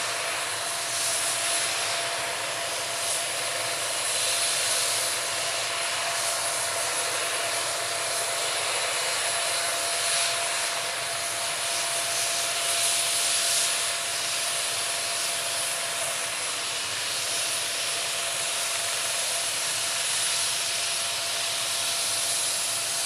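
MD 520N NOTAR helicopter running steadily: an even rushing hiss with a steady whine held at one pitch.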